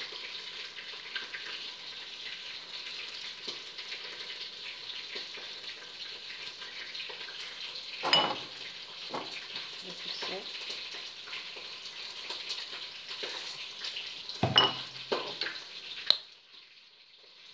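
Steady sizzle of chicken drumsticks frying, with a few sharp clinks and knocks of a metal spoon against a plate. The sizzle stops abruptly near the end.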